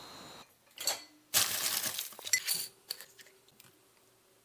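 Ice cubes clinking against a glass tumbler: a loud clatter about a second and a half in, then a few lighter clinks.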